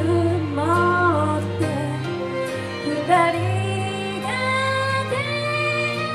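A woman singing a slow ballad into a microphone, amplified, over instrumental accompaniment, holding long notes that slide up and down in pitch.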